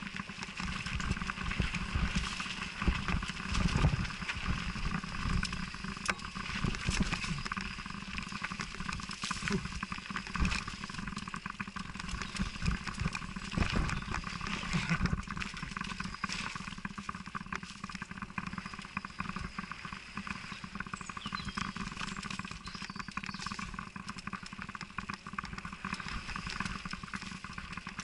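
Mountain bike riding down a rough, muddy dirt trail: a continuous rushing noise with frequent knocks and rattles as the bike goes over bumps, heaviest in the first half.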